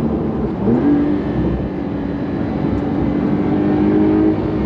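The 3.0-litre twin-turbo flat-six of a 2023 Porsche 911 Carrera T pulling under acceleration. Its note rises quickly under a second in, then climbs slowly and steadily, and dips briefly near the end.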